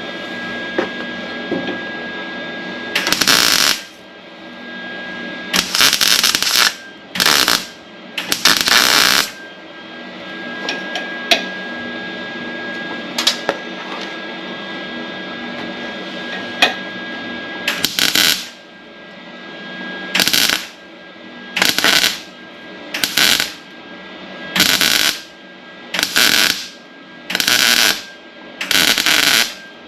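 MIG welder laying short bursts of weld on thin sheet-metal body panels, stitching and tacking to fill in seams and a burn-through. There are about a dozen crackling bursts of half a second to a second each, coming in a steady rhythm of about one every second and a half in the second half. A steady hum with a faint high whistle runs between the bursts.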